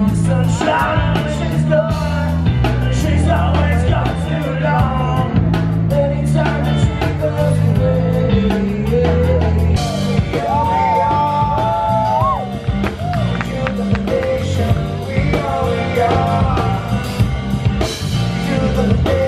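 Live rock band playing: a singer over electric guitars and a drum kit.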